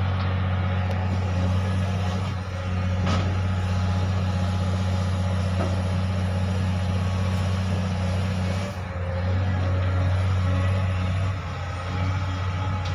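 Steady low drone of a running diesel engine from other heavy machinery nearby, dipping briefly about two and a half seconds in and again near the ninth and eleventh seconds, with a light click about three seconds in.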